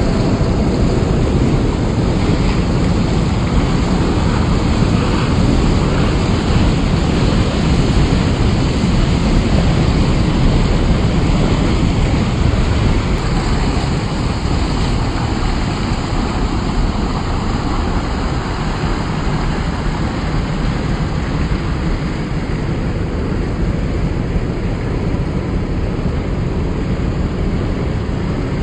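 Steady rushing of water, loud and even throughout, easing slightly in the second half.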